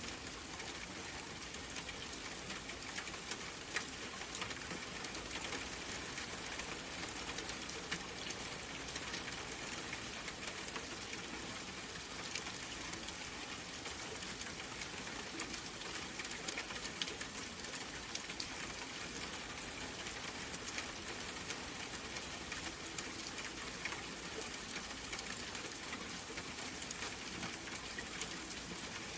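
Steady rain falling, an even hiss of many small drops with a couple of sharper, louder drip impacts.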